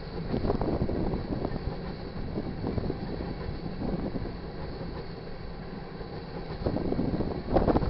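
Freight train tank cars rolling past at a grade crossing: a steady rumble of steel wheels on rail, broken by clacks as wheel sets pass over the rail joints, louder about seven seconds in.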